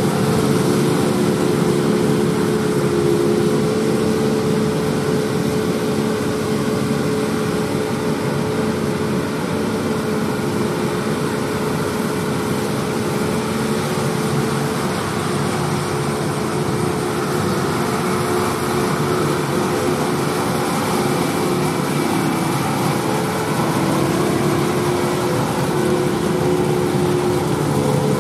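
John Deere 8R tractors and the KMC peanut pickers they pull, running together in a steady drone of diesel engine and picker machinery as they harvest past.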